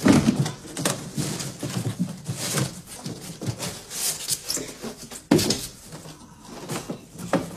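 Cardboard box and its white packing being rustled and pulled about while unpacking, with irregular crinkles and scrapes and a sharper crackle about five seconds in.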